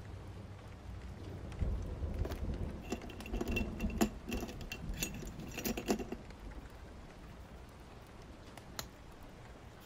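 Steady rain sound in the background. From about one and a half seconds in to about six seconds, a cluster of light clicks, clinks and rustling from small objects being handled, with one more click near the end.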